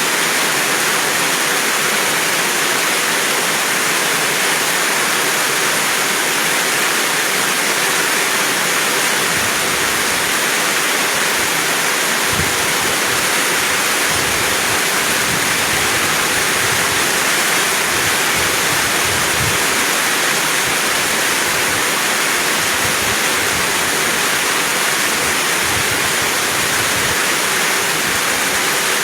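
Heavy rain pouring down, a steady, even hiss of water that holds at the same level throughout, with faint low rumbling underneath from about nine seconds in.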